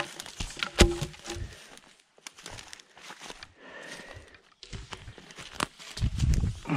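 Rustling, crackling footsteps on the forest floor, with scattered knocks and one sharp knock about a second in, and a low rumble near the end.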